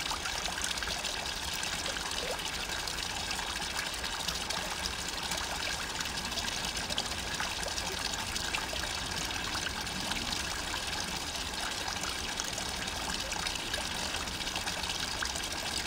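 Water pouring steadily from a pipe into a pond, a continuous trickling splash.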